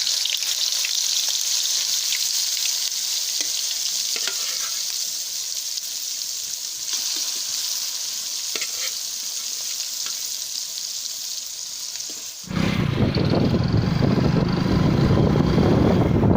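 Fish frying in hot oil, a steady high sizzle. About twelve seconds in it cuts suddenly to loud, low wind rumble on the microphone.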